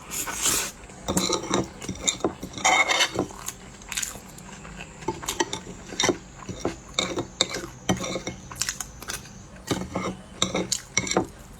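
Irregular clicks and taps of eating utensils against a dish, with a few short noisy rustles, the loudest right at the start and another about three seconds in.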